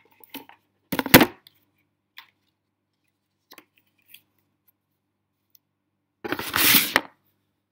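Cardboard gift box and its packaging being handled: a loud rustle and scrape about a second in, a few light taps, then a longer rustle near the end.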